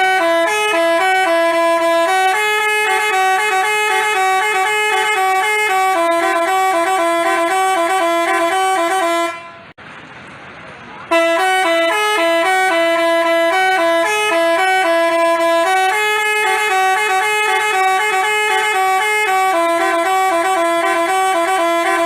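Telolet basuri multi-tone bus horn playing a tune of stepped notes, several sounding together. The tune breaks off about nine seconds in, then plays again after a short pause.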